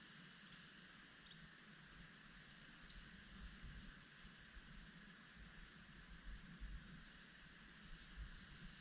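Faint outdoor ambience with a few small songbirds giving very short, high, faint chirps: one about a second in and a quick run of five or six around the middle.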